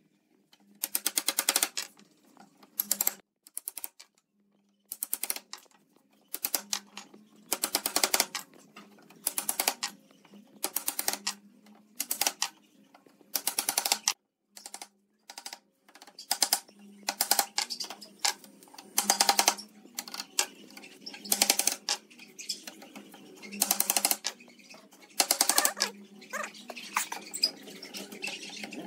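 A hammer tapping wooden slats down into the slots of a wooden rail, in short bursts of quick light blows with brief pauses between.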